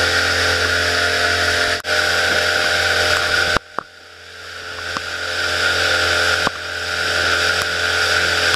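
Pontoon boat's outboard motor running steadily under way, a low hum under a broad rushing hiss of wind and water. The sound cuts out sharply about three and a half seconds in, comes back much quieter and builds up again, then jumps back to full level near the end.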